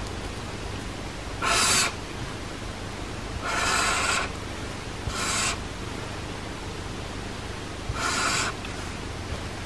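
Broad chisel tip of a Typo Creative Dual alcohol marker drawn across paper in four strokes, each a short swish of about half a second, over a steady faint hiss.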